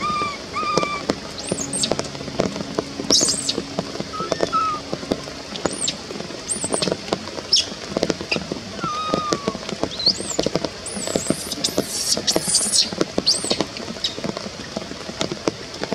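Baby macaque crying: repeated short, very high squeaks and shrill chirps, with a few lower whistly coos that rise and fall. Many faint ticks and rustles underneath.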